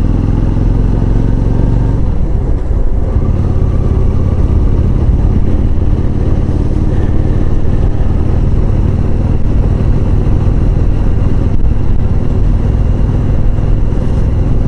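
Honda Shadow 400's V-twin engine running steadily, with a dense low engine note that wavers slightly around two seconds in.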